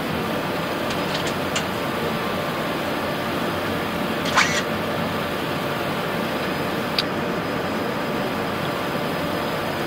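Steady air noise on the flight deck of an Airbus A380 on approach with landing gear down and flaps extended, with faint steady hums. A few short clicks cut through it, the loudest about four and a half seconds in and a sharp one at about seven seconds.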